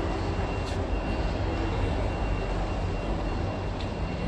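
Steady low rumble of road traffic, with a faint high-pitched whine held throughout.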